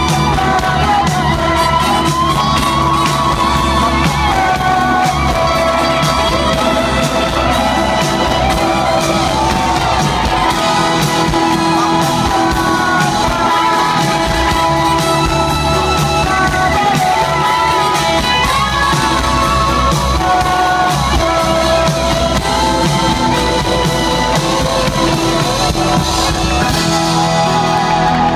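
Live pop-rock band playing loudly in a large concert hall, with guitars, drums and keyboard, and voices singing over it.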